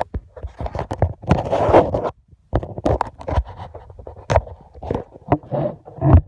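Handling noise on a phone microphone: irregular scratching and rubbing, with a louder rushing burst about a second and a half in.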